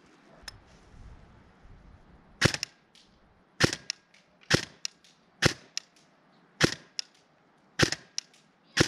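CYMA CM.041SD6 electric airsoft gun, an MP5SD6 replica, firing single shots through a chronograph: seven sharp shots about a second apart starting two seconds in, each followed by a fainter click.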